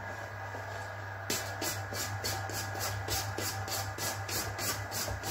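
Stand mixer motor running steadily as its dough hook kneads bread dough in a metal bowl. About a second in, a regular rubbing swish starts, about three strokes a second, as the dough is worked round against the bowl.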